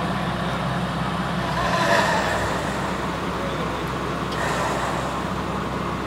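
Nissan Frontier pickup's engine running low and steady as the truck crawls over an off-road obstacle, with a brief louder noise about two seconds in.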